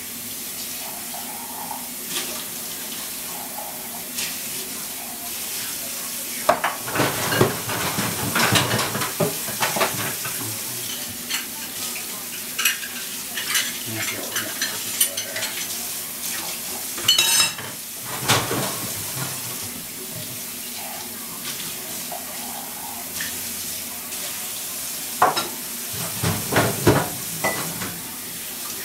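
Dishes and cutlery being washed by hand in a kitchen sink, clinking and clattering against each other and the sink in several spells, over a steady background hiss.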